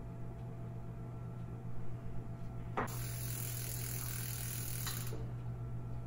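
Fat bike drivetrain turned by hand in a work stand: chain running over the cassette and through the Microshift rear derailleur while the gears are tried, over a steady low hum. The whirring gets fuller about three seconds in and eases near five seconds, with a click at each change.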